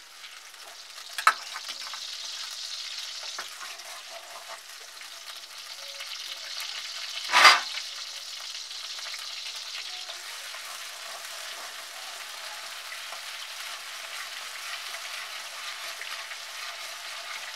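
Ginger-garlic paste sizzling in hot desi ghee in a metal kadhai, stirred and scraped with a metal spatula. There is a sharp knock about a second in and a louder one about halfway through.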